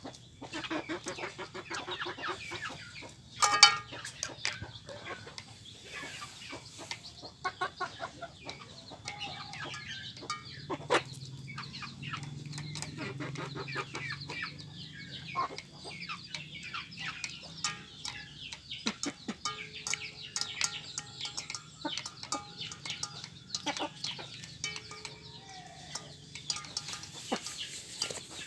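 A flock of free-range village chickens clucking and squabbling while competing for feed, with many short sharp clicks among the calls and one loud call about three and a half seconds in.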